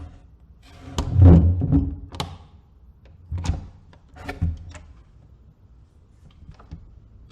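A door being opened: a sharp latch click and a heavy low thud about a second in, then further knocks and clicks around three and a half and four and a half seconds in, with faint ticks near the end.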